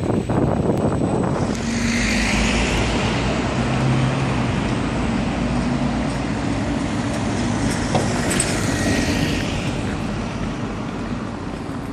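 Edinburgh tram (CAF Urbos 3) running on street track: a steady low rumble with a faint motor hum and two brief higher whines, one about two seconds in and one near the end.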